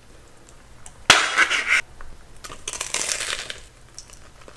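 A bite into a crispy, batter-fried Korean corn dog: a loud crunch about a second in, then a second, softer stretch of crunching as it is chewed.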